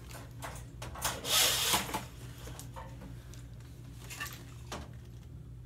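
Scattered light rustles and small knocks, with one louder rustle about a second in, over a steady low hum.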